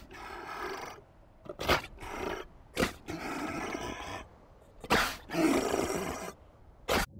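Sea lion pup calling repeatedly: four calls of about a second each, each with a sharp start, and a short one near the end.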